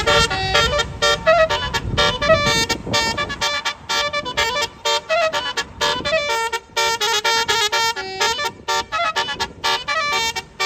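Tour bus's basuri telolet horn playing a fast tune of short, choppy notes at several pitches. A low engine rumble runs under the first few seconds.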